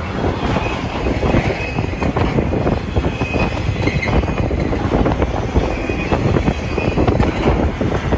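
Freight train's loaded flatcars rolling past at close range: a steady, loud rumble of steel wheels on the rail with rapid clacking over the rail joints.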